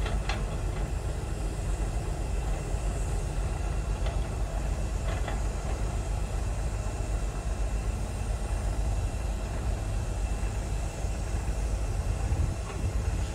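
An engine running steadily, a low even rumble with no change in speed.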